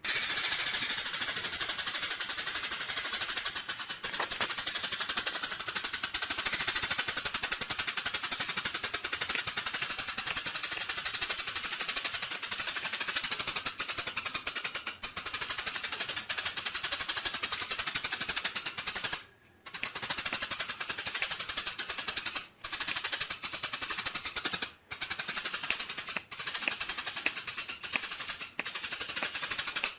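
Songbird's rapid, high-pitched rattling chatter, a dense run of very fast notes, broken by a few short pauses in the second half.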